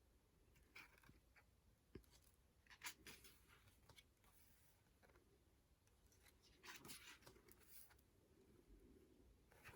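Near silence with a few faint, brief paper rustles: the glossy pages of a photobook being handled and turned.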